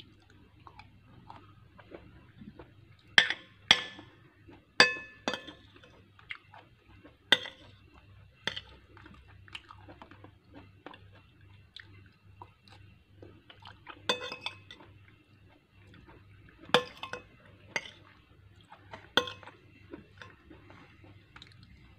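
Metal spoon clinking and scraping against a glass bowl while eating: about a dozen sharp, ringing clinks spaced irregularly, with quieter chewing and small mouth sounds in between.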